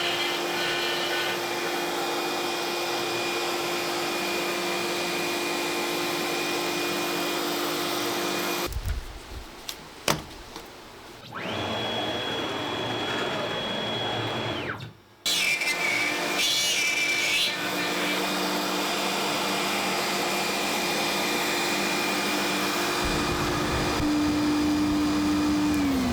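A CNC router spindle cutting wood, running with a steady whine over a rushing noise, heard in several spliced segments that start and stop abruptly. Near the end its pitch falls as the spindle spins down.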